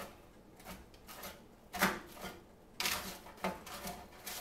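A butter knife chopping baked french fries on a foil-lined baking sheet: irregular scrapes and taps of the blade against the foil and pan, the loudest about two seconds in and a quick run of strokes around three seconds.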